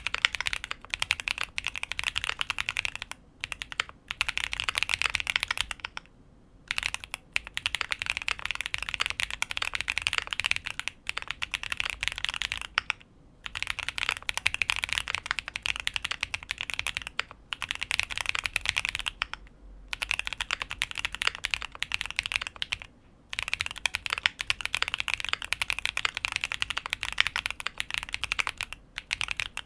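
QK75 mechanical keyboard with lubed TTC Holy Panda tactile switches on an aluminium plate, full foam and GMK keycaps, being typed on fast in runs of several seconds broken by short pauses.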